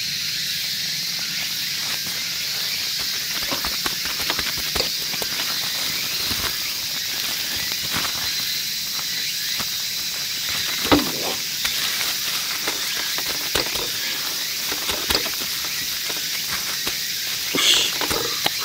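Cling film crinkling and rustling around a large raw meat patty as gloved hands slap and press it into shape, with one sharper slap about eleven seconds in. A steady high hiss runs underneath.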